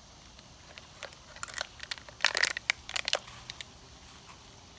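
Close crinkling and crackling, like something dry being handled or crushed near the microphone: scattered sharp clicks, with a dense burst of crackles about two to three seconds in.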